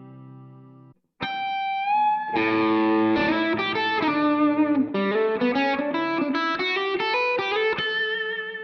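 Squier Classic Vibe '50s Telecaster played through a Positive Grid Spark 40 amp. A chord rings out and stops about a second in. After a short gap comes a single note bent slightly upward, then a quick run of single notes and chords.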